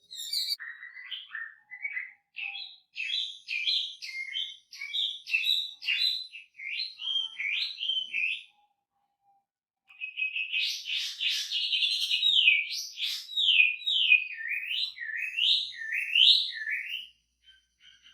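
Chinese hwamei (wambi) singing a rich, varied song full of mimicked fills, in two long phrases of quick whistled notes separated by a short pause about halfway through. The second phrase is a run of repeated slurred whistles that swoop down and up.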